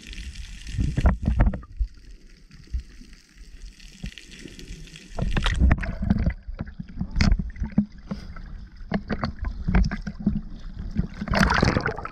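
Water splashing and sloshing over a snorkeller's camera as it moves between underwater and the surface: muffled underwater knocks and rumbles, louder splashing once it breaks the surface about five seconds in, and a rush of bubbles as it plunges back under near the end.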